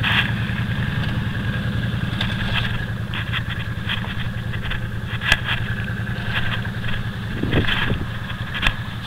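ATV engine running steadily at low speed through mud, with a few sharp clicks and knocks from the machine bouncing in the ruts.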